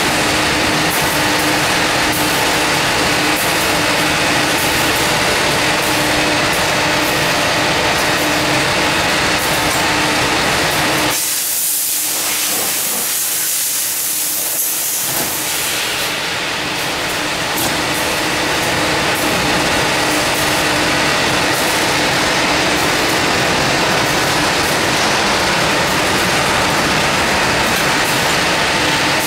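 Industrial continuous nut-frying line running: a loud, steady mechanical noise with a constant hum. For about four seconds, a third of the way in, the lower noise drops away under a loud high hiss.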